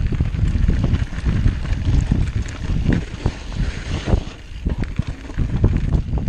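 Wind rumbling on an action camera's microphone as a mountain bike descends a dirt forest trail, with frequent short knocks and rattles from the bike jolting over roots and rocks.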